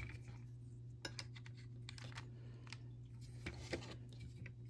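Plastic Lego bricks clicking and tapping as they are handled and pressed onto a Lego plate: scattered light clicks, with a few louder ones about a second in and around three and a half seconds in.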